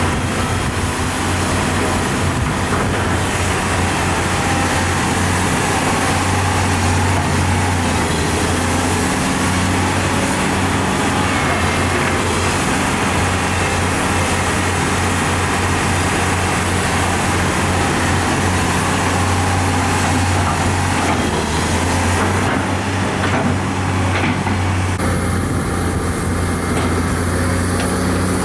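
Heavy diesel engine of earthmoving machinery running steadily under load, a constant low hum.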